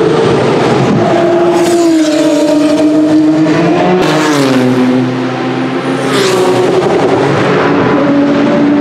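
Group C prototype race cars running at speed, several engine notes overlapping and dropping in pitch as the cars pass and pull away. The sound changes abruptly about four seconds in.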